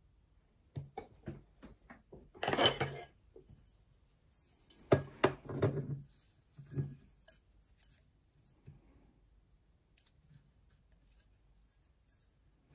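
2 mm brass wire and a metal ring mandrel clinking, rattling and scraping together as they are handled. There are several clusters of sharp clicks, the loudest a scraping rattle about two and a half seconds in and another about five seconds in, thinning to faint ticks after about seven seconds.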